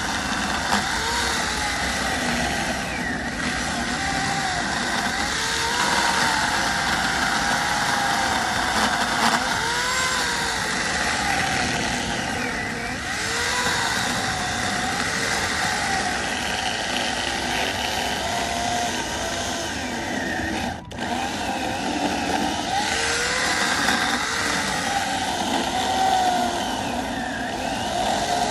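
A motor running steadily, its pitch repeatedly dipping and recovering, with a brief drop-out about two-thirds of the way through.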